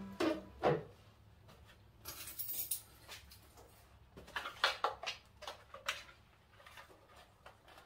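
Handling noises from a backpack and a bicycle helmet being put on: scattered light clicks, clinks and rustles of straps and buckles. There is a short rustle about two seconds in and a quick run of clicks around four to five seconds in.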